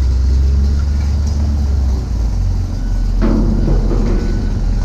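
Steady low rumble of a vehicle engine running at idle, with a short clattering sound about three seconds in.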